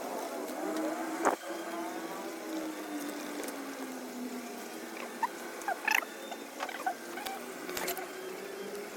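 Scattered small clicks and taps over a faint hum that slowly drops and then rises in pitch.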